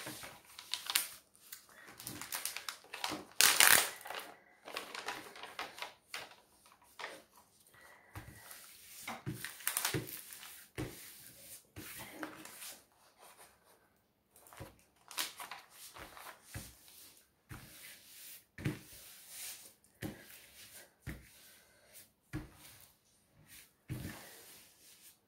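A diamond-painting canvas and its paper cover sheet rustling as they are lifted, turned over and smoothed flat by hand, with irregular short rubs and soft taps against the table.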